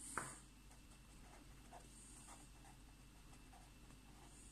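Faint scratching of a pen writing on lined notebook paper, in short separate strokes, with a soft knock about a quarter of a second in.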